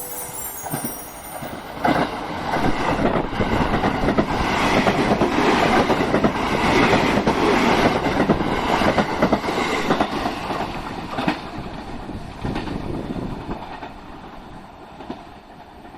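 A train passing by, wheels clicking over rail joints as it draws near, loudest in the middle, then fading away.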